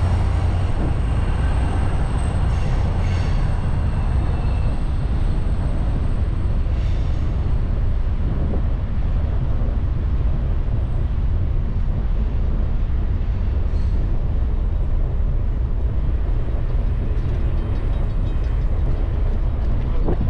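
Steady wind buffeting on the microphone of a camera riding along on a moving bicycle, with rumble from the tyres on the path underneath.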